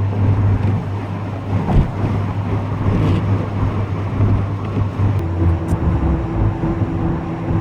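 Inside the cabin of a Mark III VW Golf driving on the road: steady tyre and wind noise with a low engine hum, and a higher steady note coming in about five seconds in. No pulsating whine comes from the newly replaced wheel bearing.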